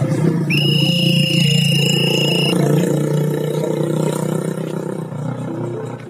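A whistle blown in one long, steady, high blast of about two seconds, starting about half a second in, over background music and a passing car.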